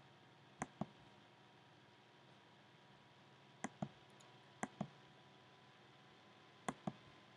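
Computer mouse clicking: four quick pairs of clicks, each a button press and release, the first about half a second in, two more close together around the middle and one near the end, with near silence between them.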